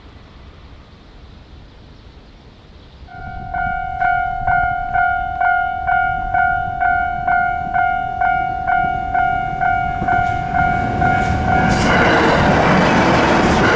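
Japanese level-crossing alarm in its standard electronic tone, a little high-pitched, starting about three seconds in and repeating at about two strikes a second. Near the end a train comes through the crossing, its running noise growing to the loudest sound over the still-ringing alarm.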